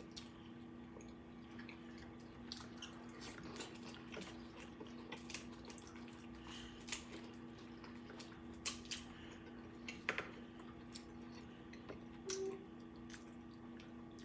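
Faint eating sounds: scattered small clicks and wet smacking as snow crab legs are cracked and picked apart by hand and chewed, over a steady low hum.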